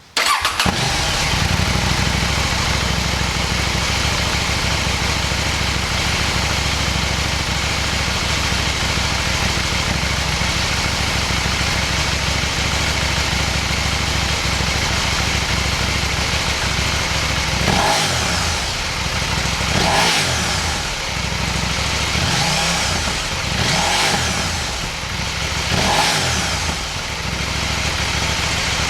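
KTM 790 Duke's 799 cc parallel-twin engine running through a Leo Vince LV10 dual slip-on exhaust: it comes in suddenly, idles steadily, then gets a few short throttle blips, each a quick rise and fall in pitch, in the second half.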